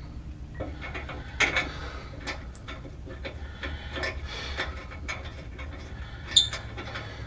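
Small metallic clicks and knocks of bolts being started by hand into a driveshaft's bolt flange, with two sharp metal pings, one about two and a half seconds in and one near the end.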